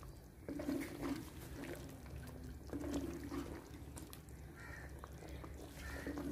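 Wooden spatula stirring chicken pieces through thick curry gravy in a clay cooking pot, a wet slosh with each of several strokes.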